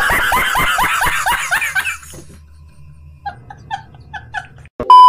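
A man laughing hard and loud, about five falling "ha"s a second for some two seconds, then softer bursts of chuckling. Near the end a loud, steady electronic beep tone cuts in.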